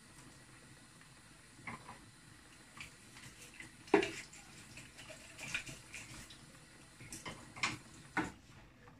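A pot of turnip soup simmering, with irregular bubbling pops and clicks over a faint steady hiss. One pop about four seconds in is louder than the rest.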